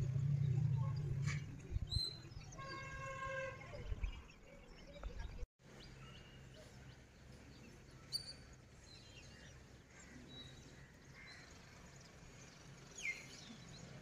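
Faint outdoor ambience with a steady low hum. About three seconds in, a horn-like tone lasts about a second and a half. After a brief dropout, a few faint bird chirps follow.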